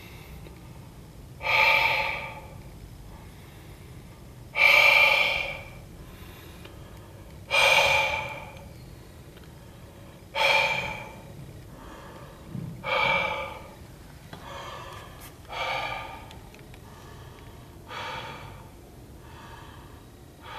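A person's sharp, breathy gasps, repeated about every three seconds, each dying away in under a second, the later ones fainter.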